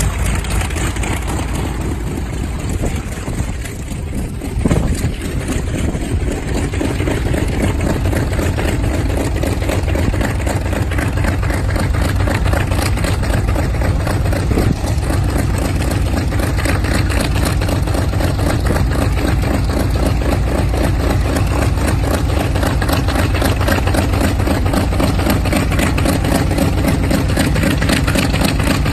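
Douglas A-1 Skyraider's 18-cylinder Wright R-3350 radial engine running steadily at idle as the aircraft taxis, its four-blade propeller turning. There is one brief louder thump about five seconds in.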